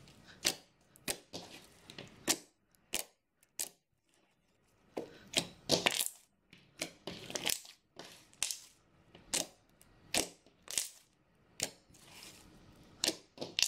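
Soft, mushy red glitter slime being kneaded, squeezed and stretched by hand, giving irregular sticky clicks and squelches, several a second, with a few longer squishes in the middle.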